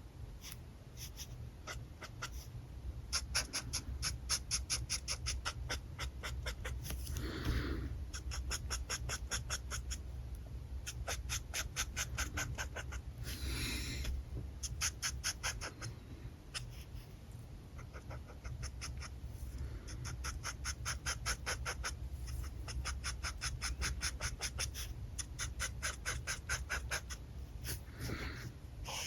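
Alcohol marker nib scratching across paper in quick back-and-forth strokes, several a second, in runs broken by short pauses, with a few longer drawn strokes.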